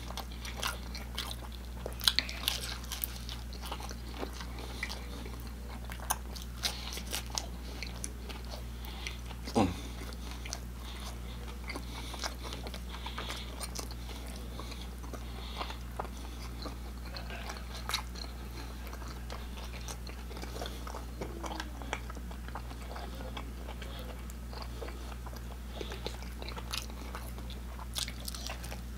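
Close-up chewing of pepperoni pan pizza: wet mouth clicks, lip smacks and the crunch of the crust, with a fresh bite taken near the end.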